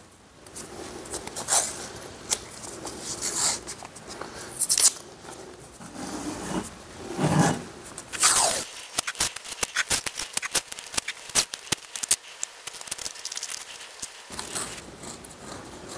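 Masking tape being pulled off the roll in several loud screeching pulls, torn, and pressed down by gloved hands on a vise part. In the second half it turns into a dense run of quick crackles and ticks.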